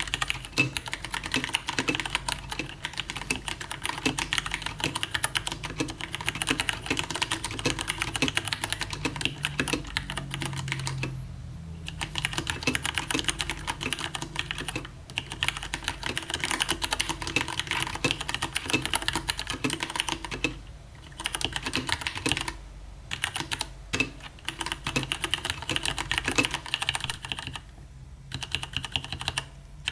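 Fast, continuous typing on a Leopold FC750R mechanical keyboard with Cherry MX Brown switches (tactile, non-clicky), a dense run of key clacks broken by a few brief pauses.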